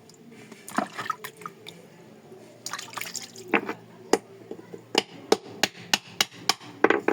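Shellfish shells being worked open: a run of sharp clicks and taps, about three a second in the second half, with wet crackling sounds earlier.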